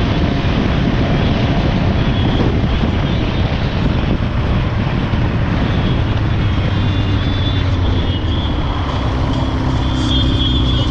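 Motorcycle being ridden: its engine running steadily under a heavy rush of wind and road noise. The engine note changes about seven seconds in.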